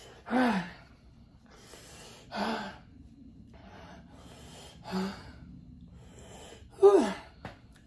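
A man's pained, breathy gasps and short moans, four of them a couple of seconds apart, each falling in pitch, the last the loudest, with breathing between: his reaction to the burn of extra-hot chicken.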